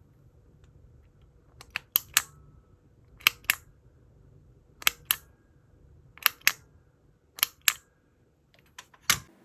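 Mechanical keyboard keys struck one at a time: sharp clacks coming mostly in pairs a quarter second apart, about every second and a half.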